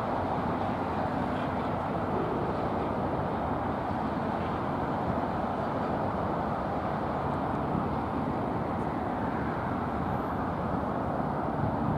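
TU7A narrow-gauge diesel locomotive running steadily under power as it hauls a short passenger train away, engine and train noise even throughout.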